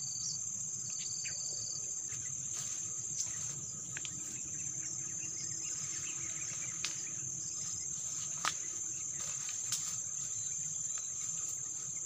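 Insects trilling in a continuous high-pitched drone. Near the start there are two short high whistles, and a few sharp ticks come through later.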